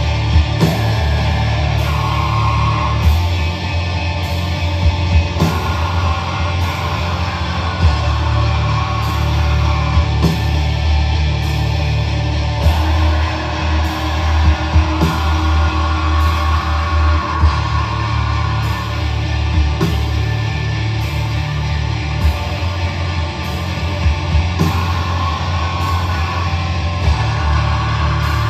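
A live rock band playing heavy, loud music: guitars and bass over drums, with no singing.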